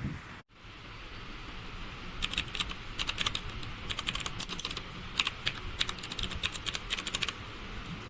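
Typing on an HJK917 mechanical keyboard with clicky blue switches: a fast, uneven run of key clicks that starts about two seconds in and stops shortly before the end.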